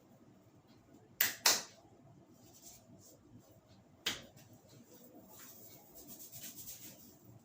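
A barber's hands at work in a head massage: two sharp slaps a third of a second apart, a third slap a few seconds later, then a quick run of light taps near the end.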